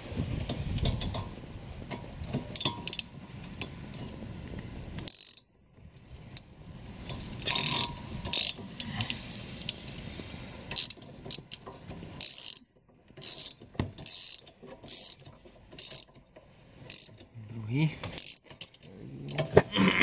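Socket ratchet wrench clicking in short, irregular runs as it turns a rear brake caliper bolt. In the first few seconds there is scraping and handling noise from work on the brake parts.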